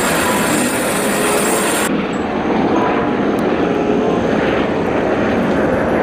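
Eurocopter EC130 helicopter running at lift-off: a steady, loud rush of turbine and rotor noise. The highest hiss falls away about two seconds in.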